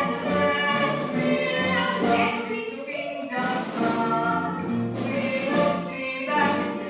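A musical-theatre cast singing together, several voices in chorus over musical accompaniment.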